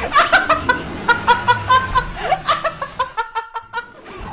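A woman laughing in quick, repeated bursts, about four or five a second, fading toward the end.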